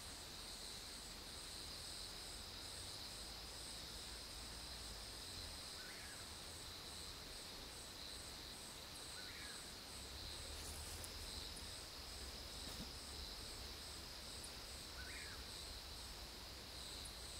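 A chorus of night insects: a steady high-pitched drone with a rapid, even chirping above it and a few faint short calls. A faint low rumble runs underneath.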